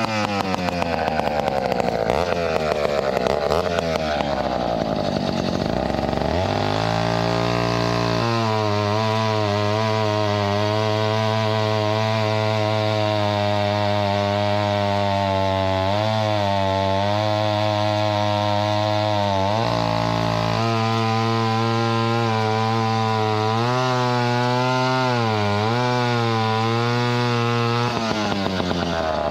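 Vintage Mono 665 planetary gear-reduction chainsaw running at high revs while cutting wood. The engine pitch sags and wavers in the first few seconds, then holds mostly steady, dipping briefly several times as the chain takes load in the cut.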